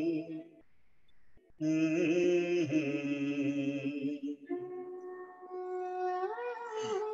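A man sings long held notes into a handheld microphone, breaking off for about a second near the start. About four and a half seconds in his voice stops and an instrumental melody carries on in smooth, stepped notes.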